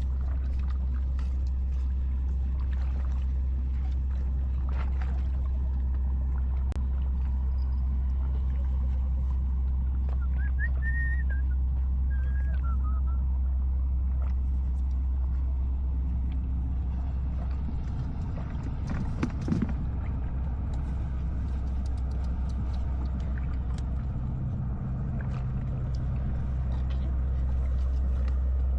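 A boat engine running steadily with an even low drone. A few short high warbling whistles come about a third of the way in.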